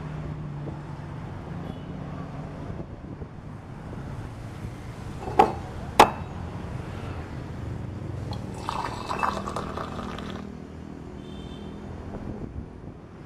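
Tea-stall glasses and utensils clinking: two sharp clinks about five and six seconds in, then a second or two of rattling clinks, over a steady low hum of road traffic.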